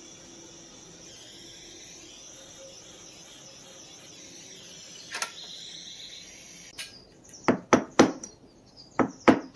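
A torch flame hissing steadily while silver is soldered, with one sharp click about five seconds in. The hiss stops near the end, and then a hammer strikes metal several times in quick succession, straightening the silver piece.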